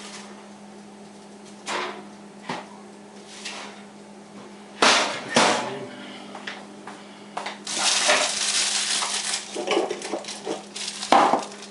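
Kitchen handling sounds: a few light clicks, then two loud clanks of dishes or pans about five seconds in, a few seconds of rustling, and another knock near the end, over a steady low hum.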